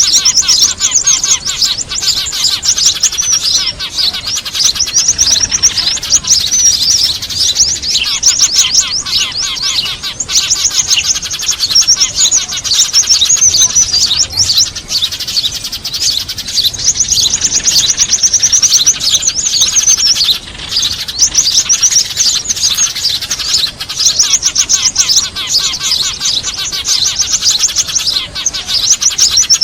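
A bird-trapping lure recording of many small birds chirping excitedly, with noisy Eurasian tree sparrows mixed among other small songbirds. Rapid runs of high, sharp chirps overlap without pause.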